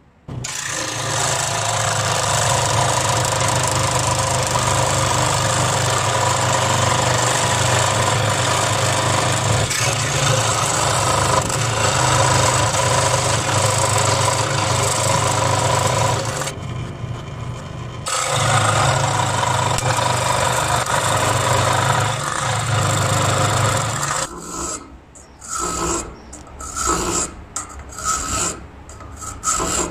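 Electric scroll saw running and cutting through a thin red brass sheet, a steady motor hum with the blade's rasp, broken by a short pause partway through. Near the end it gives way to hand filing: a flat file rasping across the cut brass piece in a run of separate strokes, a little more than one a second.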